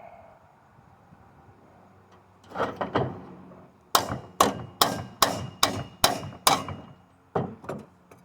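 Hammer blows on an electric motor's housing, knocking the unbolted end cap loose: three quick strikes, then seven sharp evenly spaced blows about two and a half a second, then two more.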